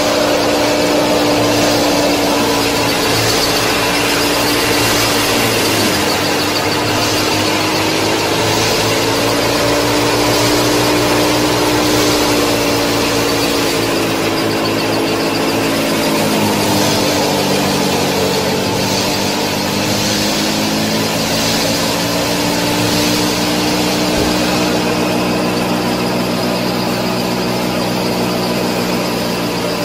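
Small electric motor of a miniature model thresher running steadily while threshing wheat, a whine that wavers and dips in pitch a few times over a hiss of chaff being thrown out.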